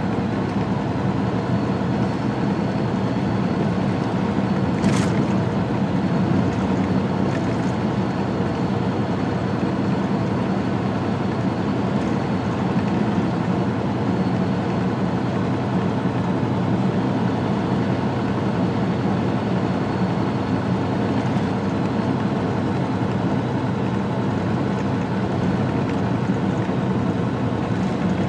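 Semi truck cruising on a highway, heard from inside the cab: a steady diesel engine drone mixed with tyre and road noise. One brief click about five seconds in.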